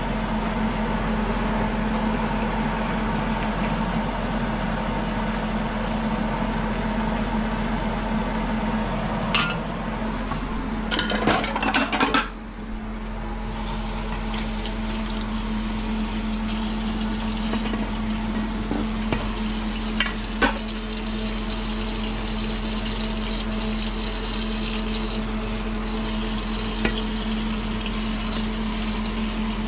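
Meat and shrimp sizzling in a pan while being stirred, with a short run of clattering utensil-on-pan knocks a little before the middle and a few single clinks later, over a steady low hum.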